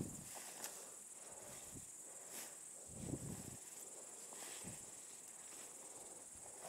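Grasshoppers chirring steadily in a meadow, a thin high-pitched trill, with a few soft rustling footsteps through tall grass.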